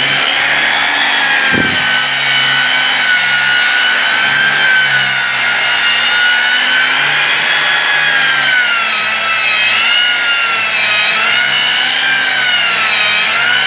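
Electric angle grinder with a 60-grit sanding disc running under load as it sands a wooden door frame, giving a steady high whine. The whine wavers in pitch, dipping and recovering several times near the end, with a brief click about a second and a half in.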